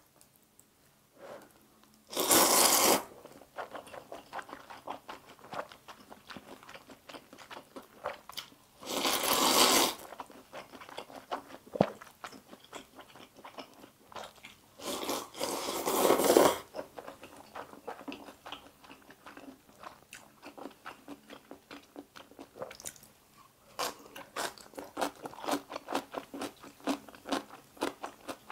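Spicy stir-fried instant noodles being slurped and chewed: three loud slurps, each about a second long, with wet, clicky chewing between them. Near the end the chewing turns steady at about two to three chews a second.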